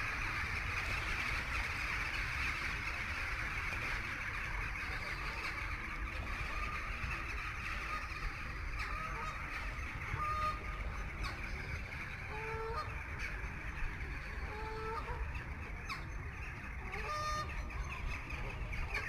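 Waterfowl giving a scattered series of short, pitched calls, starting about halfway through, over a steady rushing background noise and a low rumble.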